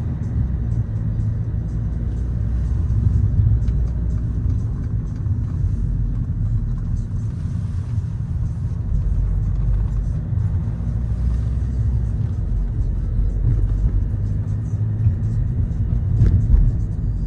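Car driving on a city road, a steady low road rumble heard from inside the cabin, with background music over it. A single thump near the end.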